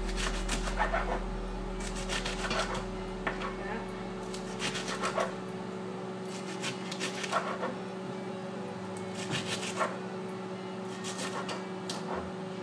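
A chef's knife chopping beet greens and stems against a plastic cutting board, in short runs of quick cuts every two seconds or so. A steady low hum runs underneath.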